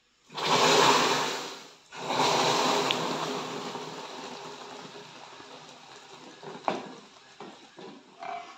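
Hot water poured into molten caramelised sugar in a pot, hissing and spitting loudly as the caramel boils up violently. There is a first burst of about a second and a half, then a second one that fades slowly over several seconds as the bubbling settles.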